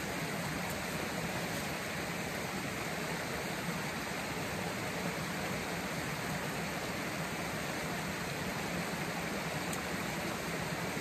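Shallow rocky creek running over stones, a steady even rush of water.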